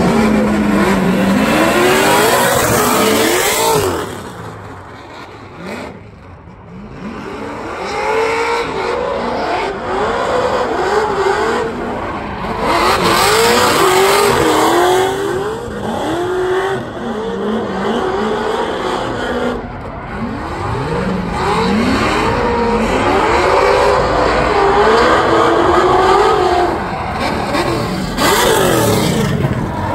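Two drift cars' engines revving hard, the pitch swinging up and down again and again as the throttle is worked through a tandem drift, over the hiss and screech of spinning rear tyres. The sound drops away for a few seconds early on, then comes back loud.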